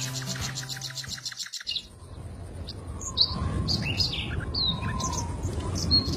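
A stretch of music breaks off early, and then small birds chirp: many short, quick chirps rising and falling in pitch, over a low background rumble.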